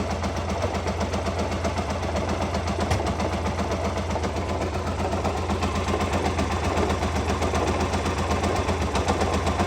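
2007 Hyosung GT650R's V-twin engine running steadily at low revs with a rhythmic galloping, grinding-like noise, which the owner suspects may be a bearing failure. The noise persists whether the clutch is in or out and in neutral or gear.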